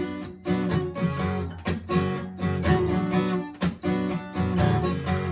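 Acoustic guitar strumming chords, with repeated sharp strums that ring on between strokes.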